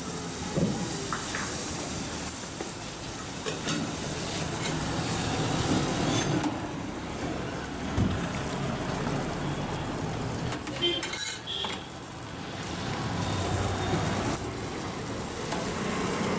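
Butter dabeli buns sizzling on a hot tawa griddle as they are pressed and heated, with a steel spoon clinking against steel pots as filling is scooped, a cluster of clinks about eleven seconds in.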